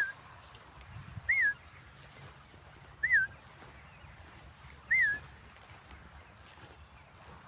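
A bird calling: four short, wavering whistled calls spaced about one and a half to two seconds apart, then it falls quiet for the last couple of seconds.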